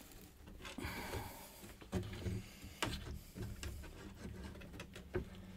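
Faint clicks, taps and rustling of hands working a broken slide fader loose from an analog synthesiser's circuit board, with a soldering iron set back in its stand; a few sharper clicks stand out among them.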